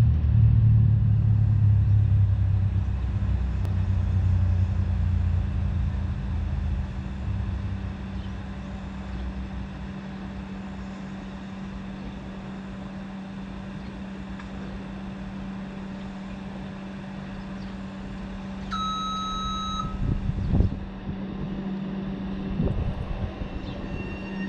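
Auckland AM-class electric multiple unit standing at the platform with a steady electrical hum, under a low rumble that fades away over the first several seconds. About three quarters of the way through, a single electronic beep lasts about a second; near the end the traction motors start a rising whine as the train begins to move.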